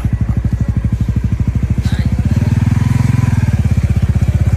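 Motorcycle engine running with a rapid, even pulsing, getting louder from about two seconds in.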